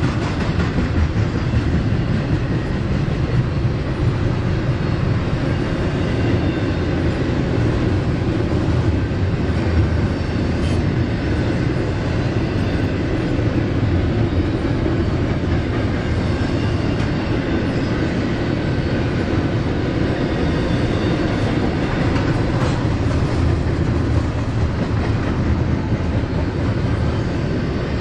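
Freight train cars rolling past on the track, a loud, steady noise of steel wheels on rail.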